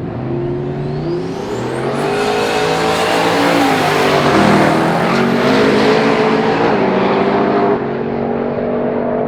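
Turbocharged V8 drag car accelerating hard, its engine note climbing in pitch and getting louder, then dropping suddenly about eight seconds in.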